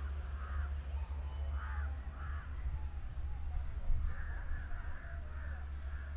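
Crows cawing in short harsh calls, a few scattered and then a quick run of them about four seconds in, over a steady low rumble.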